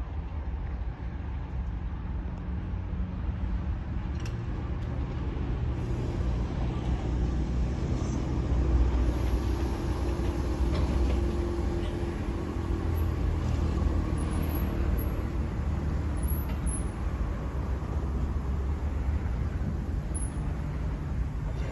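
Diesel locomotive running with a steady low engine rumble that swells a little about a third of the way in, with a few faint clanks.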